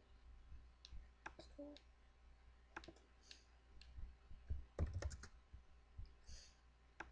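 Scattered clicks and taps on a laptop, picked up close by its built-in microphone, with a louder knock and thud about five seconds in.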